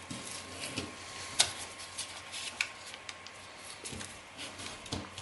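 Duo-colour kami paper being handled and creased by hand into rabbit-ear folds: faint rustling, with two sharp crackles of the paper a little over a second in and again about a second later.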